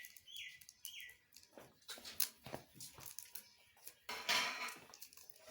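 A small bird chirps a few times in quick succession at the start. Then come scattered clicks and knocks and a short rustle about four seconds in, from handling the tiny phone and its battery.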